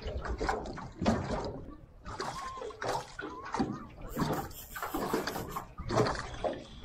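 Water slapping and sloshing against the hull of a small boat in irregular bursts.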